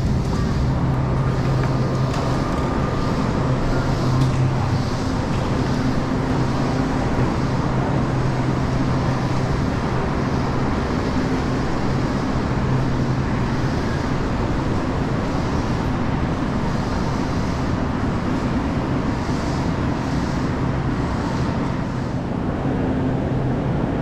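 Steady low mechanical hum with a constant drone over a rumbling noise, without pauses.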